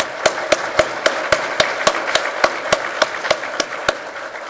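Audience applauding, with one pair of hands clapping loudly close by at about four claps a second. The close clapping stops near the end and the applause dies away.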